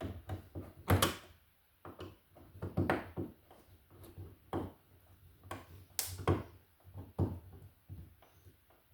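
Irregular clicks and knocks of hand tools and hardware being handled while a wall receptacle is worked on, with the loudest knocks about a second in and about six seconds in.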